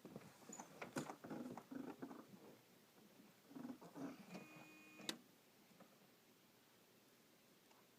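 Faint clicks, taps and rustling handling sounds. About four and a half seconds in there is a short buzzing tone that ends in a sharp click, then near silence with no engine running.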